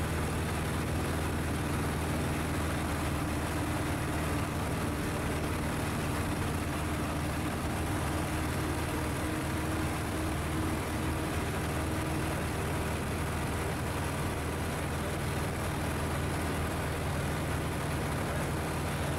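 Engine and propeller of a Just Aircraft Highlander light plane running at a steady, even drone, heard inside the open-framed cockpit in flight.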